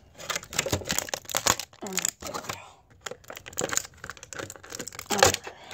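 Clear plastic blister packaging crinkling and clicking in quick, irregular bursts as a Mega Bloks figure is pried out of its tray.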